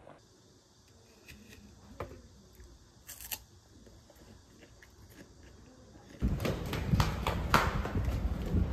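Near quiet with a few faint clicks for about six seconds, then hurried running footsteps with rustling handling noise start suddenly and continue at about two or three steps a second.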